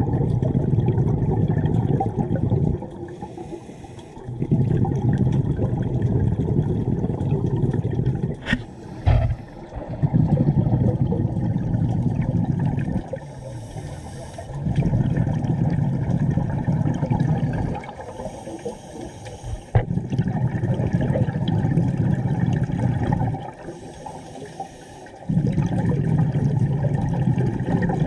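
Scuba breathing through a regulator underwater: long bursts of exhaled bubbles alternating with shorter, quieter inhalations that carry a faint high hiss, repeating about every five seconds.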